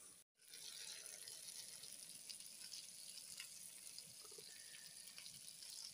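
Sliced chicken sausage frying in a pan: a faint, steady sizzle with small scattered crackles.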